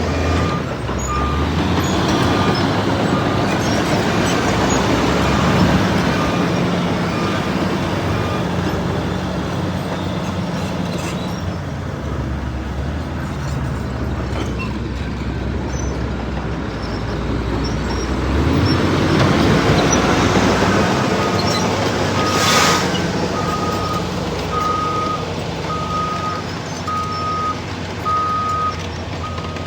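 Heavy diesel bulldozer engine running under varying load, its note shifting as it works. A reversing alarm beeps about once a second, faintly at first and much louder in the last third, with a brief hiss partway through the loud beeping.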